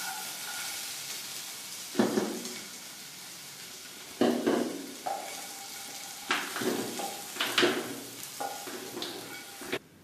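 Fried potatoes and peanuts sizzling in ghee in a non-stick frying pan, with the burner just turned off, while a spatula scrapes and stirs against the pan about ten times at irregular intervals. The sound cuts off abruptly near the end.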